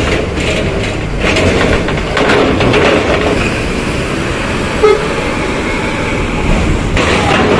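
Bus engine running, with a horn held steady for about four seconds in the second half. A short sharp knock comes about five seconds in.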